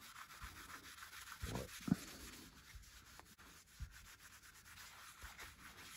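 Cloth wiping over the glazed face of a ceramic tile, a soft steady rubbing, with a few light knocks in the first four seconds.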